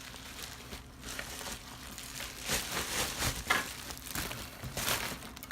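Cardboard and plastic packaging rustling and crinkling, with scattered light knocks, as a power tool is lifted out of its box.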